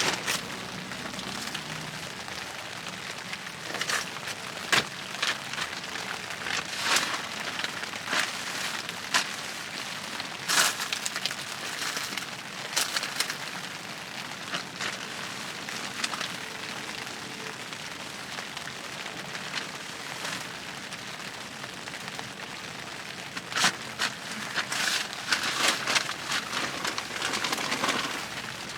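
Rain falling on a tent's fabric roof, heard from inside: a steady hiss with irregular sharp ticks of heavier drops, more of them at times.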